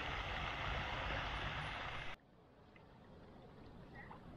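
Steady rushing outdoor noise with a low rumble, which cuts off abruptly about two seconds in. Much quieter lakeside ambience follows, with a few faint high chirps.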